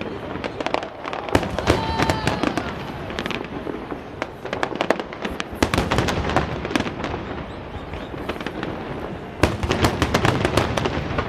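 Aerial fireworks going off in rapid succession: a steady run of bangs and crackles, packing closer together about nine seconds in.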